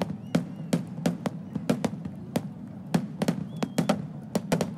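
Underwater fireworks shells bursting at the water's surface: a rapid, irregular string of sharp bangs, about three to four a second, over a low rumble.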